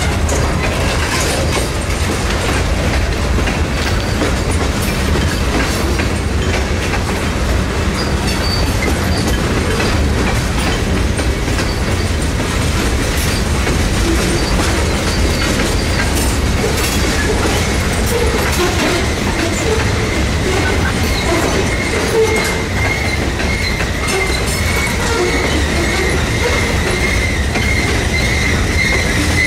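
Freight cars rolling steadily past close by: a continuous rumble of wheels with clicking over the rail joints. A steady high wheel squeal comes in about twenty seconds in.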